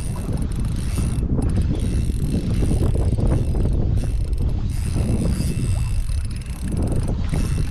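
Small Daiwa Revelry 2000-size spinning reel being worked during the fight with a big fish, its gears and clicking mechanism running, over a steady low rumble of wind on the microphone.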